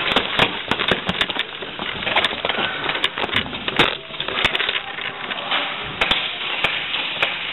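Airsoft guns firing and BBs striking hard surfaces: an irregular run of sharp snaps and clacks, several a second at times.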